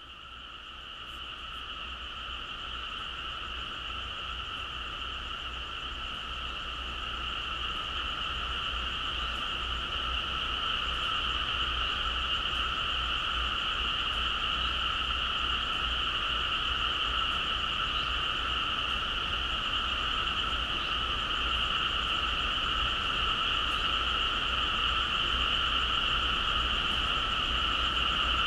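A dense chorus of frogs calling, a steady shrill trill in two pitch bands that fades in over the first ten seconds or so and then holds.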